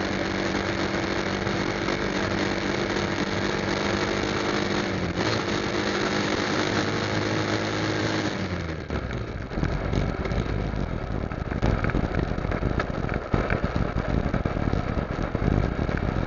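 Motorcycle engine running steadily while riding, heard with wind on the microphone. About eight seconds in, the engine's steady note drops away and a choppy, uneven low rumble of wind takes over.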